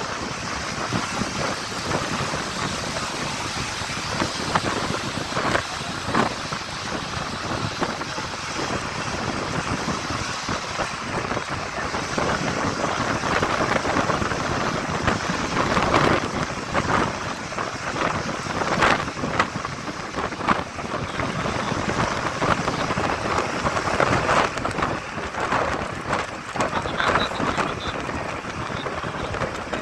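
Wind rushing over a microphone held outside the window of a moving bus, over the rush of traffic on a wet road, with frequent louder gusts.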